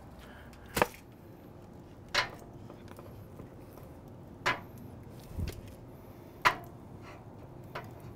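Raw beef short rib sections set down one at a time on the grates of a Sunterra Pro Argentine grill: four short, soft thuds about two seconds apart over a faint steady hiss.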